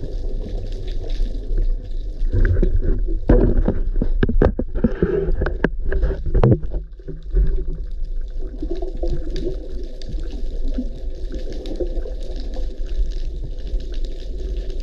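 Underwater sound picked up through a camera housing: a steady, muffled rumble of water. Between about two and seven seconds in, a cluster of sharp clicks and knocks sits over a louder stretch.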